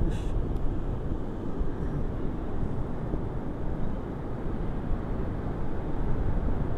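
Wind rumbling on an action camera's microphone beside the sea: a steady low noise, with distant surf underneath.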